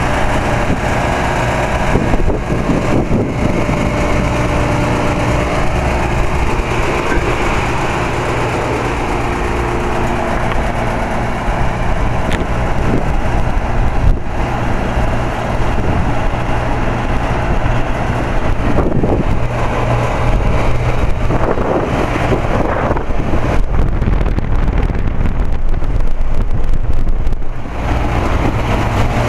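Carrier TECH2000 straight-cool central air-conditioner condensing unit running: a steady compressor hum under the even whoosh of the condenser fan.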